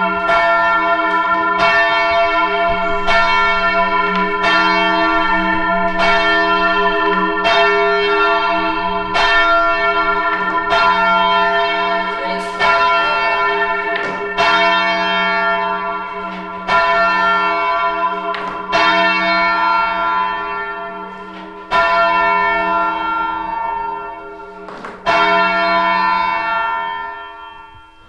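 A single church bell rung by rope, each stroke of the clapper ringing on over the last. The strokes come about once a second at first, then further apart and fainter, as when the bell is being rung up.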